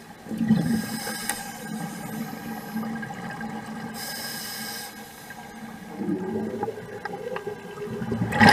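Underwater sound of scuba divers breathing through their regulators, with exhaled bubbles gurgling. Two hissing breaths stand out, one about a second in and one about four seconds in.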